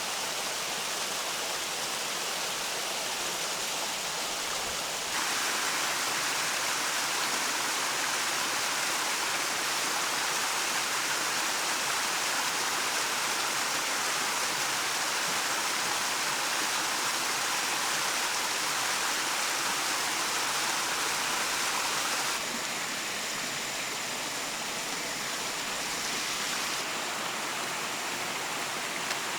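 Steady rushing noise of running water, like a stream. It becomes louder and brighter about five seconds in and drops back near the end.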